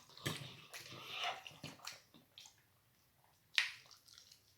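Close-miked eating sounds: scattered wet smacks and clicks of chewing with the lips. The sharpest smack comes about three and a half seconds in, after a brief lull.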